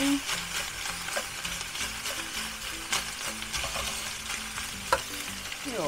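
Minced meat and freshly added sliced onions sizzling and frying in a pan, with a few short clicks as the pan is stirred.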